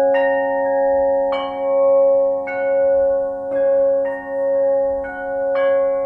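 Flat bells (bila) struck with a mallet, about seven strikes at roughly one a second. Each strike leaves several long ringing tones that overlap into a sustained, layered chime.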